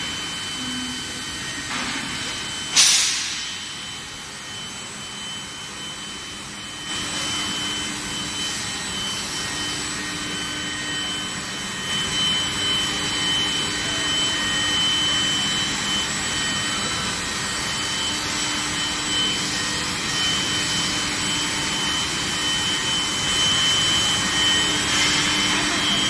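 Stainless steel bar induction heat-treatment line running: a steady loud industrial hiss and hum with several high, steady tones over it. A single sharp knock about three seconds in, and the noise grows a little louder from about seven seconds in.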